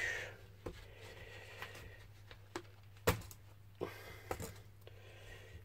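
A few small clicks and taps from small airbrush parts being handled and set down in a foam-lined case, the sharpest about three seconds in, over a low steady hum.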